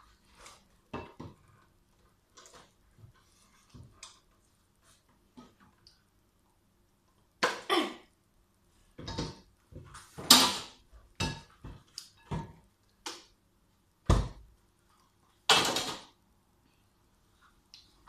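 Kitchen clatter from baking: bowls, trays and utensils knocked and scraped on a worktop in a string of separate clunks, with a heavy thud a little past the middle.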